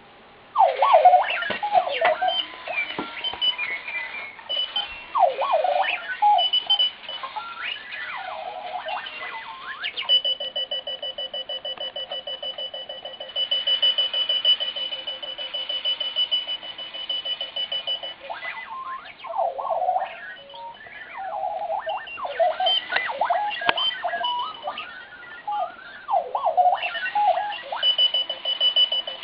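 Clocky wheeled alarm clock going off. It starts suddenly with a string of random electronic chirps and warbling swoops, broken twice by a steady, rapidly pulsing high beep that lasts several seconds.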